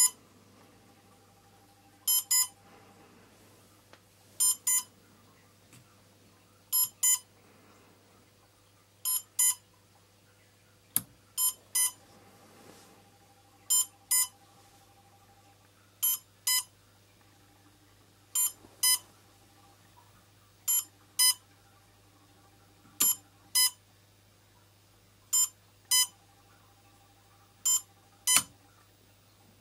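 Quadcopter electronic speed controllers beeping: pairs of short electronic beeps repeating about every two and a half seconds over a faint electrical hum.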